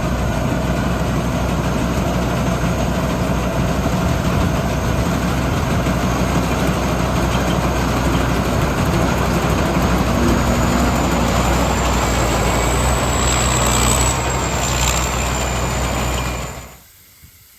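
A large engine running steadily and loudly, with a thin high whine added partway through; it cuts off about a second before the end.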